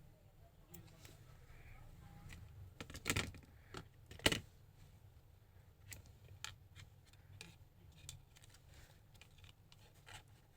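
Scattered small clicks and taps from handling a smartphone and its replacement screen panel on a workbench, with louder knocks about three and four seconds in, over a low steady hum.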